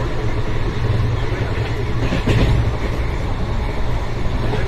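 Passenger train carriage running along the rails, heard through an open window: a steady rumble of wheels on track, with a brief louder clatter a little over two seconds in.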